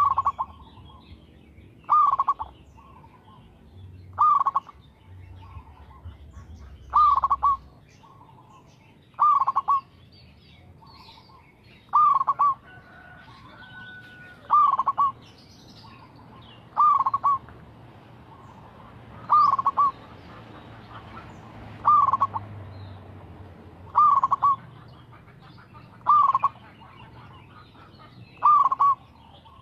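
Zebra dove (perkutut) cooing in a steady, regular rhythm: a short call of a few quick notes, repeated about every two to two and a half seconds, some thirteen times.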